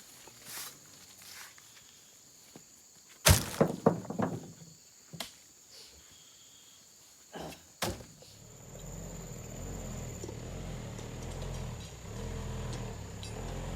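Scattered knocks and heavy thumps, with a sharp bang a little before halfway, then a truck engine running steadily from just after halfway.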